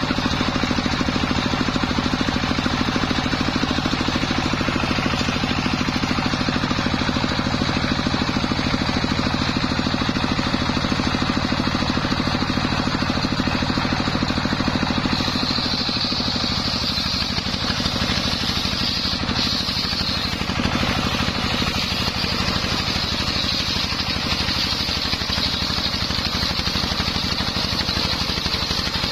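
Homemade belt-driven circular sawmill ripping a coconut palm log, with its drive engine running steadily under load and the blade cutting. About halfway through, a higher hiss from the cut grows louder.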